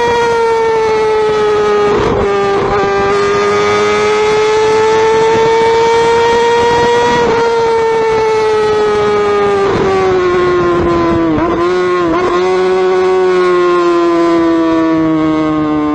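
Motorcycle engine running hard at high revs, a high steady note that drifts slowly in pitch, with several brief dips about two, seven, ten and twelve seconds in, and settles a little lower near the end.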